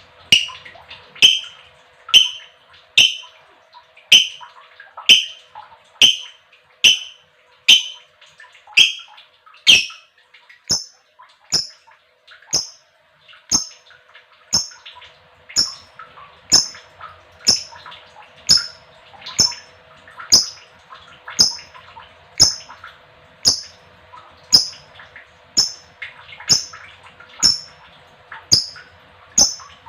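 Female lovebird calling in short, sharp chirps, about one a second in an even rhythm.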